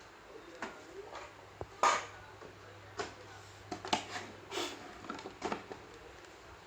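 Irregular clicks, knocks and light clatter of small hard objects being handled, over a faint steady low hum.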